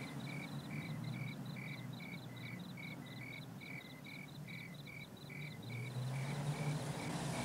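Crickets chirping steadily, about two to three chirps a second, with a faint low hum underneath.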